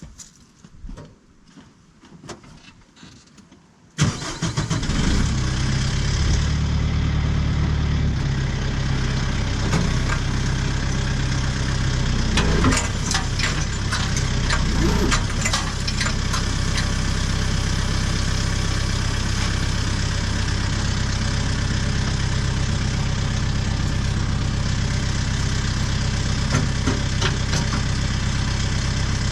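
Faint shuffling for a few seconds, then about four seconds in a tractor engine starts suddenly and settles into a steady idle.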